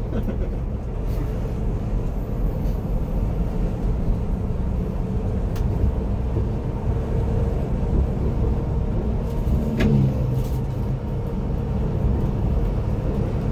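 Volvo B11R coach's diesel engine and tyres heard from inside the cabin while driving: a steady low rumble, with a short falling tone about ten seconds in.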